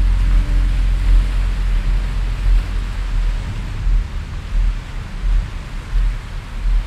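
Ocean surf: a steady rushing wash over a deep, uneven rumble. The last tones of a soft music track fade out just after the start.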